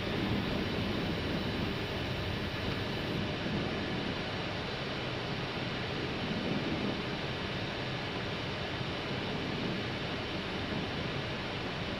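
Steady rushing airflow and engine noise inside an Airbus A319 cockpit on final approach, with the landing gear extended.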